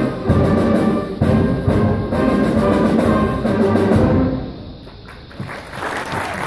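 Eighth-grade concert band playing, with strong accented chords about once a second; the music ends about four seconds in. After a brief lull, the audience starts applauding near the end.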